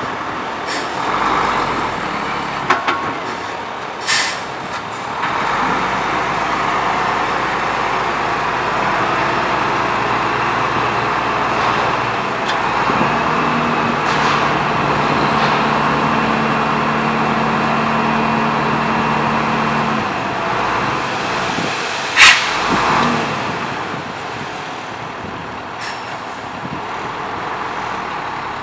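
Ten-wheel dump truck's diesel engine running while its hydraulic hoist raises the tipper bed to dump a load of soil. A steadier engine hum holds for several seconds in the middle. A few sudden sharp sounds come through, the loudest about two-thirds of the way in.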